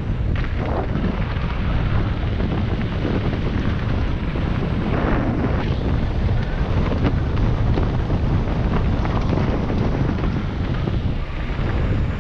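Wind buffeting the microphone on a fast downhill mountain bike run, a steady low rush, with brief rattles and knocks from the bike over rough ground about half a second in and again around five and seven seconds.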